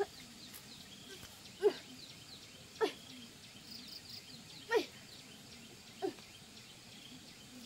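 Dog barking in short single yelps, about five of them one to two seconds apart, with faint high chirping of insects or birds behind.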